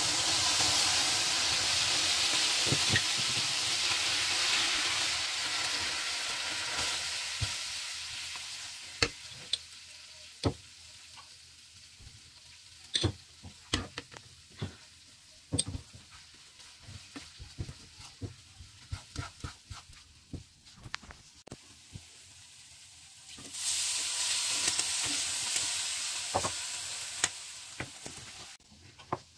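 Butter sizzling in a hot frying pan as flour is stirred into it with a plastic spatula. The sizzle fades over the first several seconds, leaving the clicks and scrapes of the spatula against the pan. Near the end a loud sizzle starts suddenly as water is poured into the hot roux.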